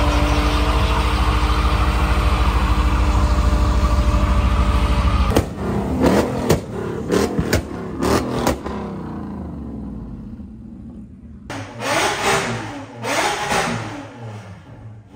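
A car's engine held at high revs during a burnout, tyres spinning, steady and loud for about five seconds before it cuts off. Then a car's exhaust gives a quick string of sharp throttle blips, and near the end several more revs rise and fall.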